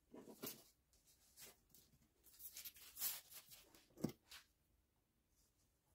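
Faint rustling and soft handling of baking paper and rolled phyllo dough being shifted by hand, with one soft knock about four seconds in.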